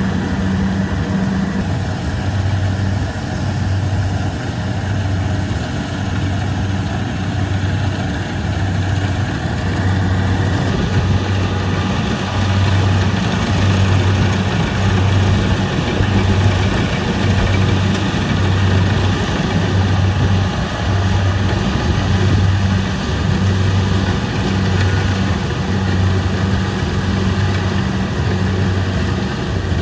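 Kubota combine harvester's diesel engine and threshing machinery running steadily, a low hum that pulses about once a second over a constant mechanical clatter.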